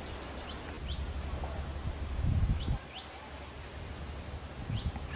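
Woodland bird chirps, a handful of short single rising notes spaced out over a few seconds, over a steady low rumble that swells briefly about halfway through.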